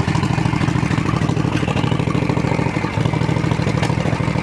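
Motorcycle engine idling with the revs raised slightly, briefly stumbling about three seconds in. It has an intermittent misfire (a 'sneeze') heard from both the engine and the muffler, which stalls the engine at lower revs and which the owner wonders may lie in the electronic ignition.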